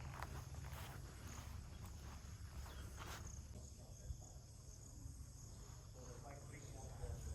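Faint outdoor ambience of insects chirping: short high chirps repeating evenly, about two a second, over a steady low rumble.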